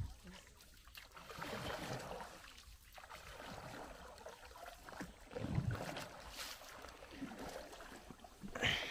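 Wooden canoe paddles dipping and pulling through calm river water: a few soft swishes and trickles of water, one stroke every second or two at an uneven pace.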